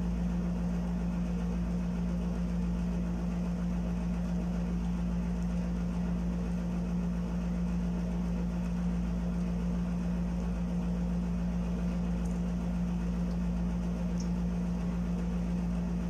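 Steady low electrical hum of a room air conditioner running, one constant tone over a low rumble. A couple of faint ticks from a plastic spoon against the plastic sundae cup near the end.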